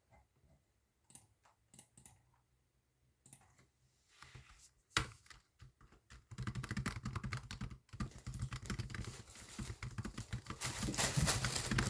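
Computer keyboard typing: a few scattered keystrokes at first, then fast continuous typing from about six seconds in.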